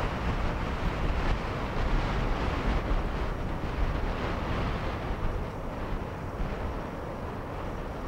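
Steady rushing roar of a wind-driven wildfire burning up through pine trees, with wind buffeting the microphone; it eases slightly about halfway through.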